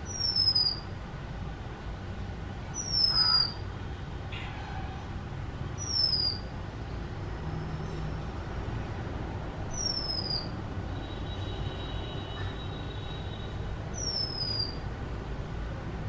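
Female Oriental magpie robin calling: five short, clear whistles, each sliding down in pitch, given every three to four seconds.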